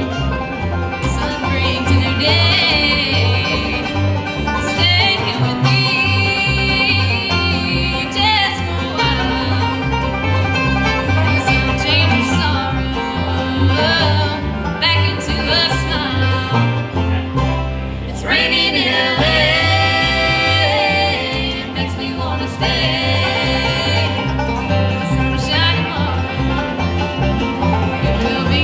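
Live acoustic bluegrass band playing a song: a woman singing lead over mandolin, acoustic guitar, five-string banjo and upright bass, the bass keeping a steady beat underneath.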